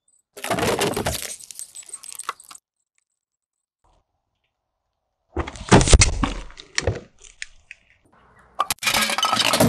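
A car tyre crushing a sealed tin can, with about two seconds of crunching and crackling; then, after a silent pause, a drinks carton bursting under the tyre with a heavy thud and crackling. Near the end another sharp crack and crunch begins.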